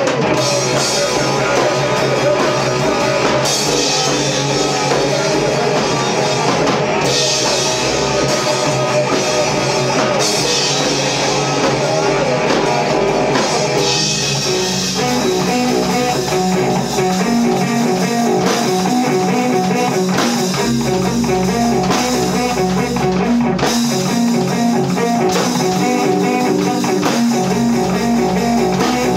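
A rock band playing live: electric bass and electric guitar through amplifiers, with a drum kit. About halfway through, the playing settles into a steadily repeating riff.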